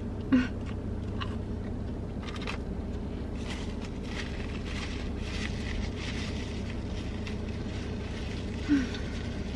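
A person chewing food, with faint scattered mouth clicks and smacks over a steady low rumble in a car cabin; two short hums, one just after the start and one near the end.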